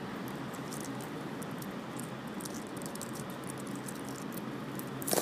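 Feral pigeons pecking banana chips off stone paving: many quick, irregular light taps of beaks on the chips and stone over steady background noise. A sudden louder burst begins at the very end.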